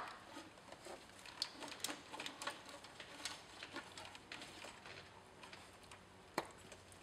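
Faint clicks and rattles of plastic wiring connectors and the ignition coil being handled and unplugged by a gloved hand, with a sharper click at the start and another about six seconds in.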